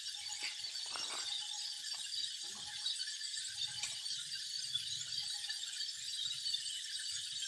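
A steady, high-pitched buzzing chorus of forest insects, with a few short, faint whistled notes over it.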